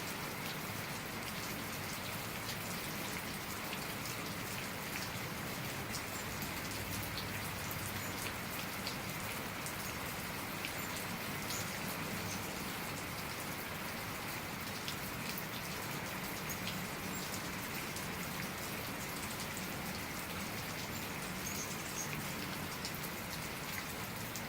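Steady rain falling, a continuous hiss with many separate drops ticking close by.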